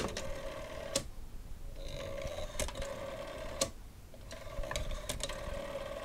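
Rotary dial of a Western Electric 500 telephone being dialed. The dial is released and spins back three times, each return a steady whir lasting one to two seconds and ending in a sharp click.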